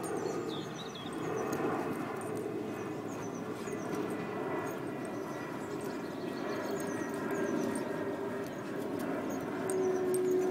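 An Entlebucher Mountain Dog and a Beagle play-wrestling on grass.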